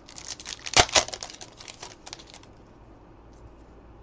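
A Select NRL trading card pack's wrapper being torn open and crinkled: a dense run of crackles for about two and a half seconds, with two sharp loud snaps about a second in.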